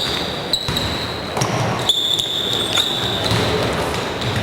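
Basketball bouncing on the court during play, a few sharp knocks, with voices in the background.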